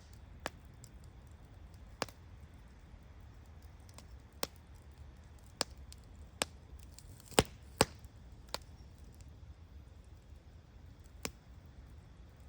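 Wood bonfire crackling: about nine sharp, irregular pops, the two loudest close together a little past halfway, over a faint steady background.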